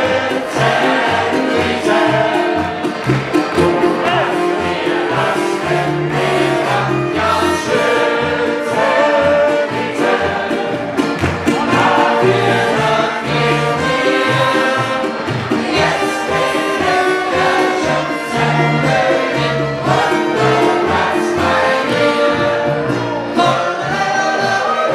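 Music with singing over a steady bass line.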